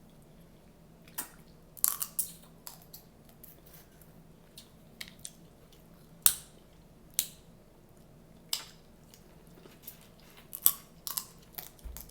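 Close-miked eating of a seafood boil of shrimp, crab legs and corn: scattered sharp cracks and crunches of biting into the food, with chewing between them. The loudest cracks come about halfway through and again near the end.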